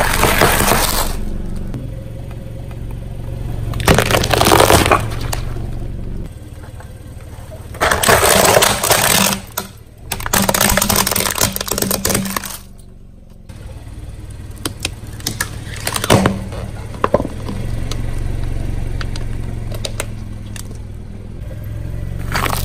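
A car tyre rolling over and crushing packaged snacks and a plastic toy truck: several bursts of crunching, crackling and snapping, with scattered small clicks near the end, over a low steady hum.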